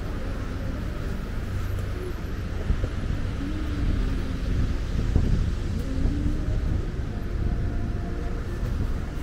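Street background noise: a steady low rumble of traffic on the road.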